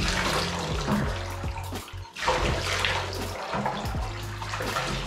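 Water poured from a small jug over a dog standing in a bathtub, splashing into the bath water, with background music playing underneath.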